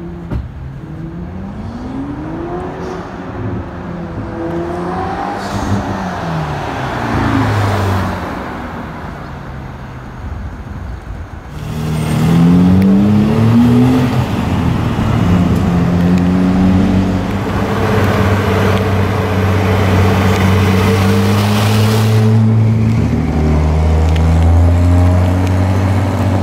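Sports car engines. First a car accelerates past, its engine note rising and dropping back with each gear change. Then a louder engine revs up and runs on with a steady, deep drone.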